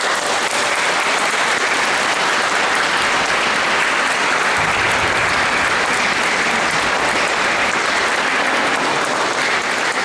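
Audience applause: many people clapping together, starting suddenly and holding steady.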